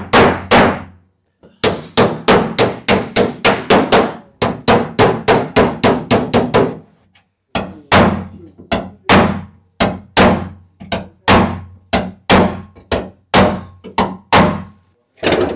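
A hammer strikes a steel bar held against the inside of a classic Lancia Sports Coupe's rear panel, knocking a dent outward. The blows ring metallically, first in a fast run of about three a second, then after a brief pause more slowly, about one every second and a half.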